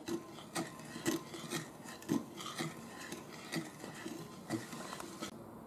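Wooden spatula stirring red wine with sugar in a glass bowl, scraping and tapping against the glass about twice a second. The stirring stops shortly before the end.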